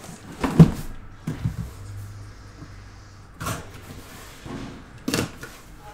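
Handling noise as a cardboard box is moved and set down on a table: a handful of separate knocks and thuds, the loudest about half a second in.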